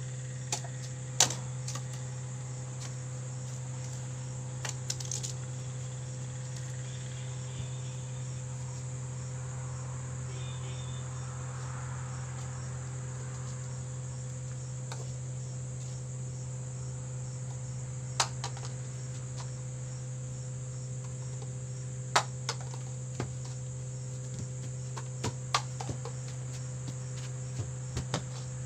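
Crickets chirping steadily over a low steady hum, with a few sharp clicks and knocks now and then.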